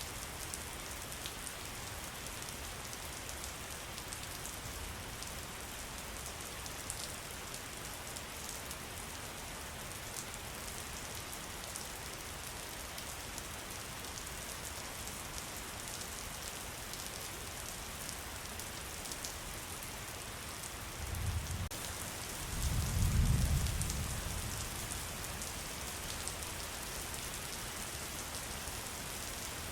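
Steady rain falling on a surface: a constant hiss with fine scattered drop ticks. About two-thirds of the way in comes a brief low rumble that swells and fades over a few seconds.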